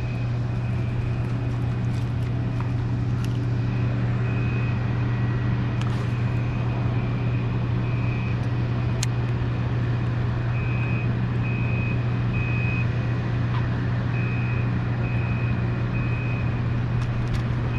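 A steady low droning hum, like a motor running, with a faint high-pitched tone that comes and goes in short repeated pulses and a few light clicks.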